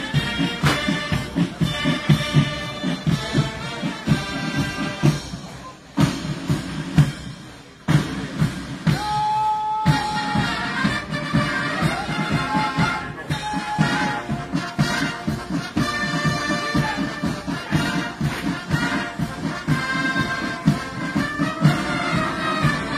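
A brass band playing a military march with a steady beat. The music fades out about six seconds in and comes back abruptly about two seconds later.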